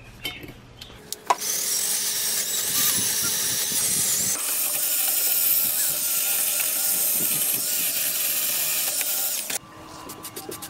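A steady spraying hiss lasting about eight seconds that cuts off suddenly. It is followed near the end by quick, even rattling clicks of a spray-paint can's mixing ball as the can is shaken.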